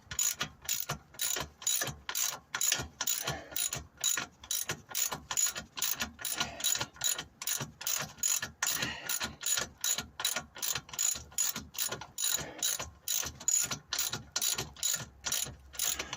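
Hand ratchet clicking in quick, even back-strokes, about three a second, as a bolt on a new lower engine mount is tightened.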